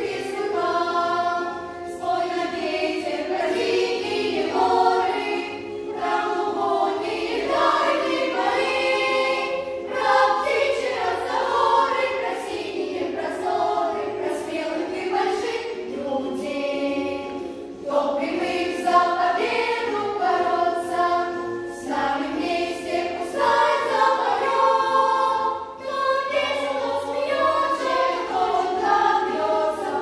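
Children's and youth choir singing a song together, with brief breaks between phrases.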